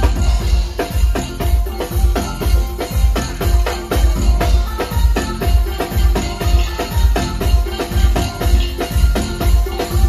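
Live band playing through large speaker stacks: drum kit and percussion over a heavy bass beat about twice a second, with pitched instruments.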